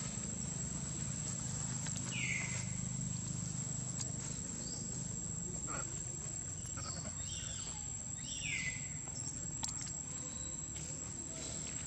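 Steady, high-pitched drone of insects, with a few short high calls that slide down in pitch: one about two seconds in and two more later on.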